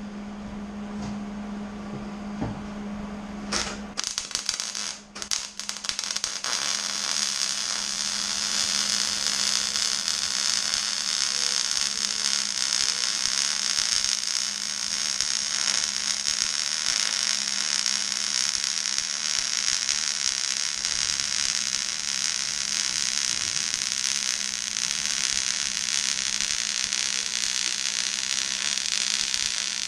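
Wire-feed welder arc crackling and hissing steadily as a bead is run on a steel mower deck. It strikes about four seconds in, stops briefly, then runs on unbroken. A steady low hum lies underneath throughout.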